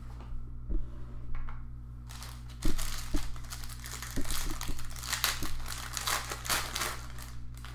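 Plastic trading-card packaging crinkling and rustling as it is handled, with a few light knocks on the table. The crinkling is densest from about two seconds in until near the end.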